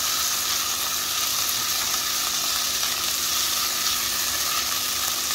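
Steady sizzle of chopped onion, ginger and garlic frying in oil in a non-stick wok as cornflour is stirred in with a silicone spatula.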